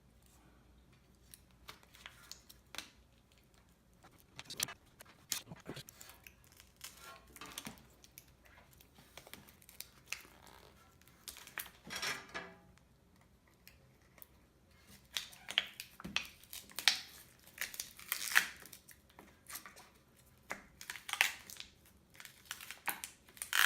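A swollen, glued-in MacBook Pro battery being forced out of the laptop's case: irregular crackling, tearing and scraping of the adhesive and battery pouch, with sharp clicks. It is sparse at first and busier in the second half.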